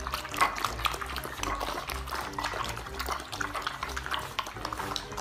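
Several puppies eating from bowls: a fast, irregular run of wet lapping and smacking clicks.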